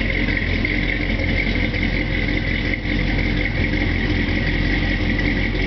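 The ZZ4 350 small-block V8 of a 1967 Chevrolet El Camino idling steadily while still cold, shortly after a cold start.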